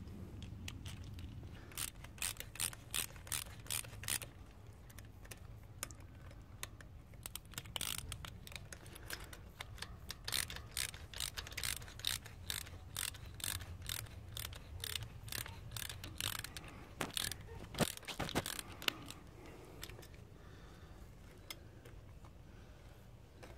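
Hand ratchet wrench clicking in quick runs of strokes, about four clicks a second, as it tightens a nut on an e-bike torque arm, with two louder clicks near the end.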